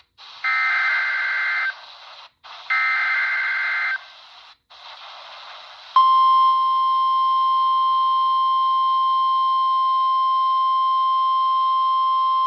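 NOAA Weather Radio emergency alert heard through a RadioShack 12-254 weather radio: two loud bursts of warbling two-tone SAME digital header, each just over a second long, with radio hiss between them. About six seconds in, the steady 1050 Hz warning alarm tone starts and holds, the signal that a warning (here a High Wind Warning) is about to be read.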